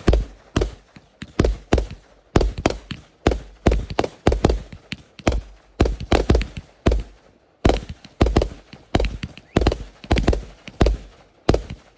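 Fireworks going off in a rapid string of sharp bangs, two or three a second, each with a short fading tail.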